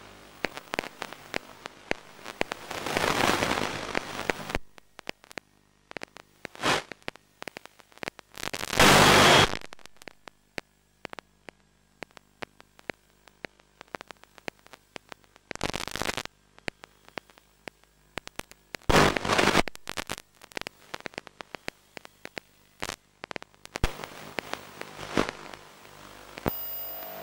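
Crackling radio static on the FPV audio downlink: scattered clicks and several loud bursts of hiss that cut in and out, the loudest about nine seconds in.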